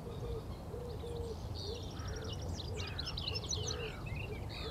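Birds singing: high twittering songs and chirps, with a low cooing note repeated about twice a second, over a steady low rumble.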